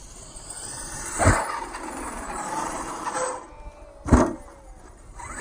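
Radio-controlled car driving, its electric motor whining and rising in pitch over the sound of the tyres on the ground, with two hard thumps: one about a second in and one about four seconds in.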